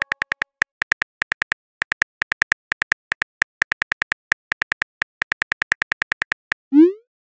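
Simulated phone-keyboard tap clicks from a texting-story app, coming fast in runs with brief pauses as a message is typed. Near the end comes one short rising swoosh as the message is sent.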